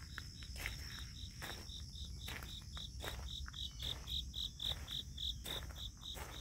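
An insect chirping in a steady rhythm at one high pitch, about three chirps a second, loudest in the middle. Faint footsteps on a gravel path sound under it.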